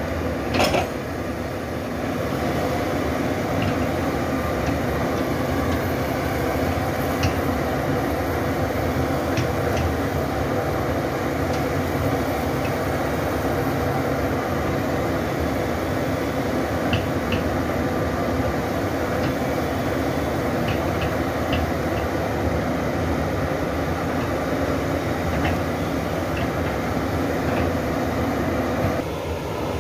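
Hitachi hydraulic crawler excavator's diesel engine running steadily under load as the bucket digs out tree stumps and roots, with scattered short sharp clicks and two louder ones at the very start.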